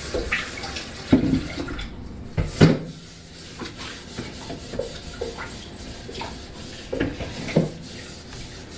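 Kitchen clatter: dishes and utensils knocking now and then, a few separate knocks over a steady background hiss.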